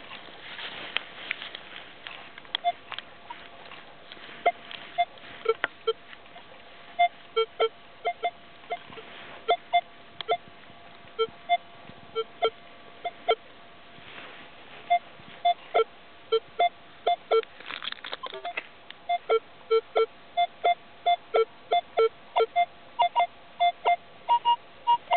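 Minelab X-Terra 705 metal detector with a 10x15 DD coil beeping as the coil is swept back and forth over a buried target. Its short target tones come in quick pairs and runs at a few different pitches, with higher tones near the end.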